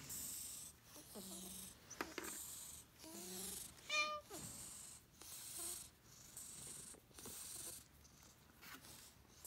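Weak senior cat purring in slow breath cycles while its head is scratched, with one short, high meow about four seconds in.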